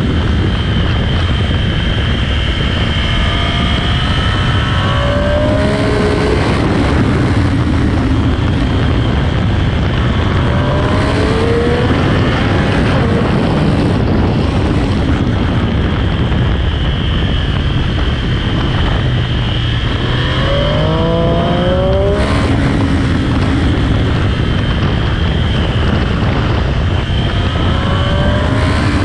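Triumph Street Triple 765 RS's 765 cc inline three-cylinder engine running hard through its stock exhaust, its pitch climbing through the revs several times, under a steady rush of wind.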